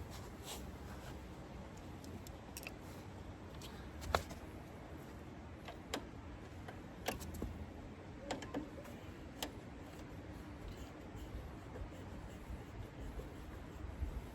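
Scattered light clicks and taps, a dozen or so at uneven intervals, from small parts and tools being handled, over a faint low background.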